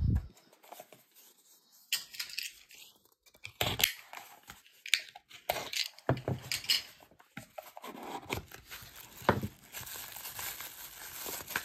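Packing wrap being torn and crumpled open from around a piece of jewelry: irregular crinkling and tearing from about two seconds in, after a short knock at the very start.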